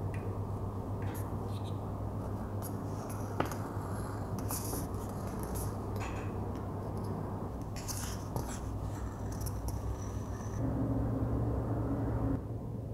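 A metal marking tool scratching along the edge of a leather strip in short, light strokes, over a steady low hum.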